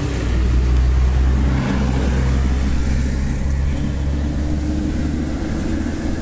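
An engine running steadily, a low even hum that swells slightly about half a second in.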